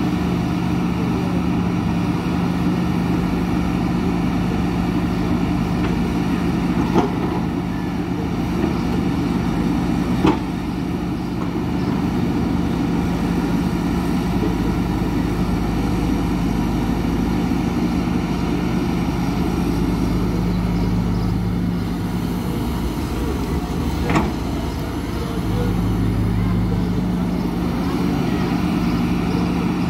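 Hidromek 230LC crawler excavator's diesel engine running steadily under hydraulic load while digging. The deeper engine note swells twice in the second half, and a few sharp knocks sound at intervals.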